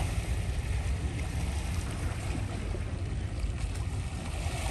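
Wind buffeting the microphone outdoors by the sea, a steady low rumble over an even hiss.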